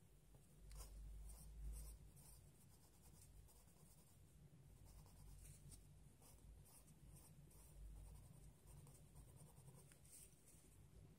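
Pencil scratching on paper in short, faint, irregular strokes as small shapes are drawn, with a low rumble about a second and a half in and again near the end.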